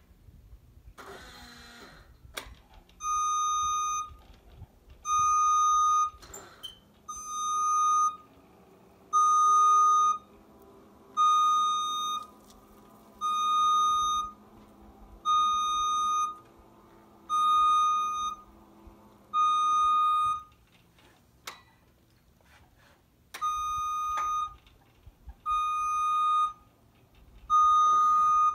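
JLG scissor lift's motion alarm beeping as the platform lowers: steady one-second beeps about every two seconds, stopping for a few seconds about two-thirds of the way through, then starting again.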